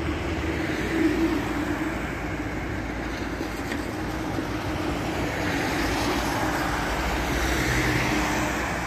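City street traffic: cars driving past an intersection, a steady hum of tyres and engines that swells as a vehicle passes close about three quarters of the way through.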